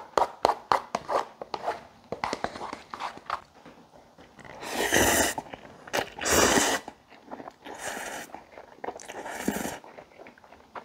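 Close-miked slurping of instant cup ramen noodles: two long, loud slurps about four and a half and six seconds in, and two shorter ones near the end. Before them comes a run of quick wet chewing and mouth clicks.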